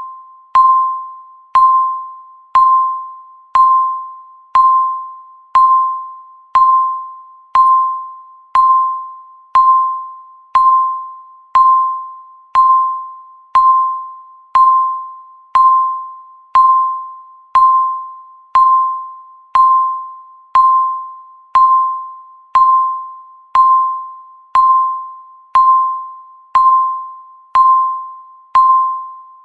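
Countdown timer's electronic beep sounding once every second: a short single-pitched beep that starts sharply and fades away, repeated evenly about thirty times.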